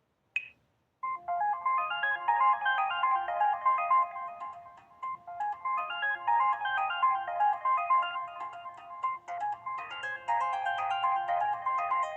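Alcatel Pixi 3 (4) phone playing a built-in melodic tone: a fast run of synthesized notes that starts about a second in and carries on without a break.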